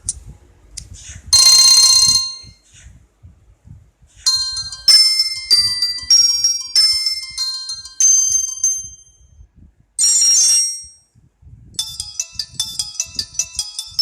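Samsung SGH-B320 mobile phone playing a series of short ringtone melodies through its small speaker, one after another with pauses between them. The notes are high and bright: a short burst, then a longer tune of separate notes, another short burst, and a quick tinkling run near the end.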